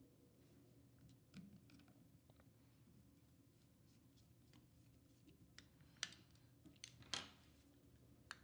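Faint, scattered clicks and small metallic ticks as tiny screws are driven back into a Nikon Ai-S 20mm f/3.5 lens barrel with a small screwdriver, with a few sharper clicks about six and seven seconds in.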